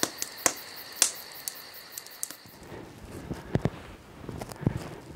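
A short intro sting: a steady high tone with sharp clicks, the loudest at the very start and about a second in. From about two and a half seconds in, irregular crunching footsteps of a person trudging through deep snow.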